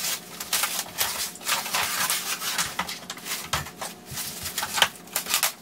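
Rustling and crinkling of a cutting machine's white protective packing wrap as it is pulled off and bunched up by hand: a steady run of irregular crackles and scrunches.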